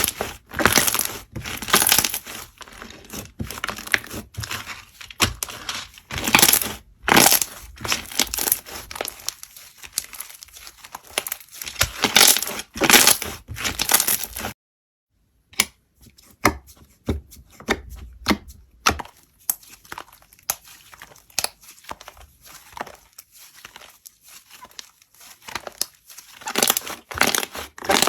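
Slime being worked by hand, squeezed and stretched, giving a dense run of irregular crackles and pops. The sound cuts out completely for about a second midway, then the crackling resumes.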